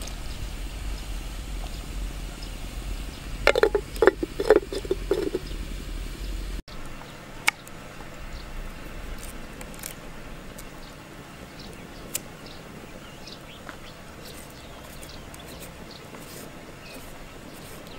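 Low rumble, with a short run of animal calls about four seconds in. After that, quieter: scattered sharp taps and light scraping as a knife cuts a carrot on a wooden board and a peeler works it.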